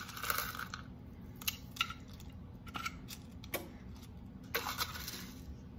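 Hands crumbling Cinnamon Toast Crunch cereal and sprinkling the pieces over paper cupcake liners: a brief crinkle at the start, then scattered light crackles and clicks.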